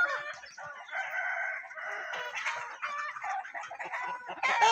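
Desi chickens perched in trees, roosters and hens clucking and calling over one another, with a louder rooster call near the end.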